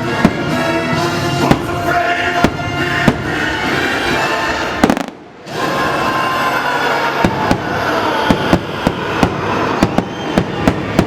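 Fireworks bursting with sharp bangs over a loud music soundtrack. The sound drops out for about half a second midway, then the music returns, and the bangs come thicker near the end.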